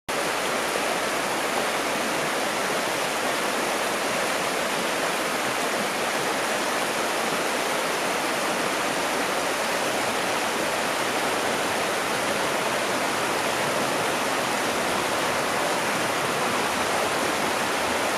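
River water rushing over rocks in shallow rapids, a steady even rush that starts suddenly at the beginning.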